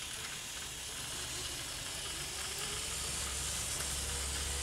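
Bachmann 00 gauge GWR 56xx tank locomotive model running slowly under power with a train of wagons. Its electric motor gives a steady low hum that grows slowly louder, with a faint rising whine as it gathers speed.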